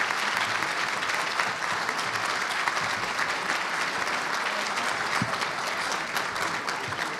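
Audience applauding steadily in a banquet hall, many hands clapping at once, easing slightly near the end.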